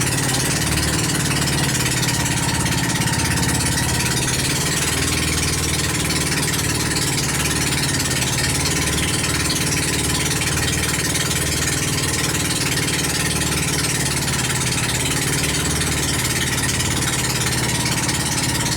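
Outrigger pump boat (bangka) engine running steadily under way, under a constant hiss.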